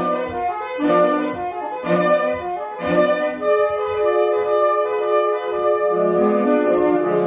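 A saxophone ensemble with clarinets playing together live. It plays accented chords about once a second, then a long held chord, with the low saxophones coming in near the end.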